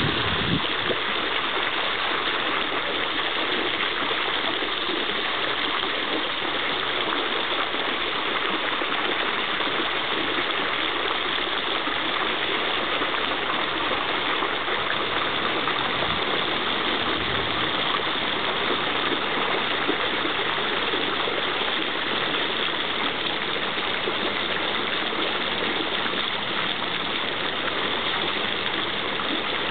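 Steady rushing and splashing of water from an outdoor stone fountain, unchanging throughout.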